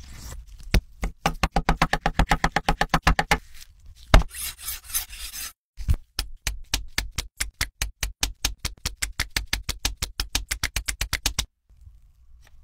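Rapid, evenly spaced clicking beat, about seven clicks a second, in two long runs with a short pause between; the first run carries a repeated pitched note.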